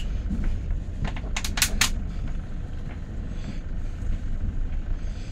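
Passenger train running, heard from inside the coach as a steady low rumble, with a quick run of about four sharp clicks between one and two seconds in.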